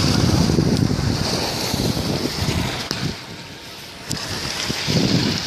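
Wind buffeting the microphone in irregular gusts over a steady hiss of sea waves. The gusts ease off about three seconds in, then pick up again.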